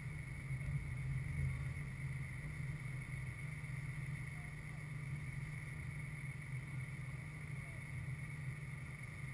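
Steady low rumble and hiss of wind on the microphone over an open soccer field, with a few faint distant shouts from players.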